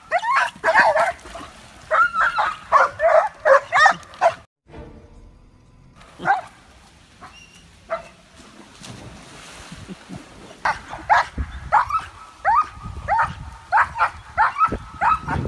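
Small dog barking in quick, high yips: a rapid run of them over the first four seconds, a few scattered barks in the middle, then another rapid run from about ten seconds in.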